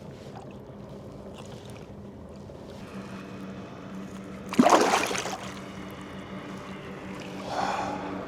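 Water moving against a kayak as a caught walleye is handled, with one loud sudden splash about halfway through and a softer one near the end.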